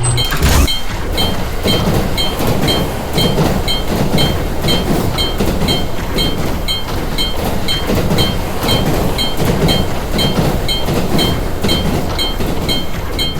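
Railroad crossing bell clanging in an even rhythm, about two and a half strikes a second, over a loud rumbling, rushing noise, with a sudden crash just after the start.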